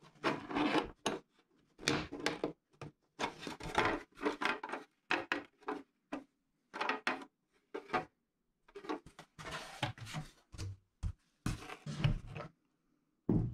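Handling sounds of a black plastic cartridge display board: irregular clicks, taps and rustles as a plastic clip is pressed into the board and locked onto a brass .500 S&W cartridge, and the board is lifted and set down on its cardboard box.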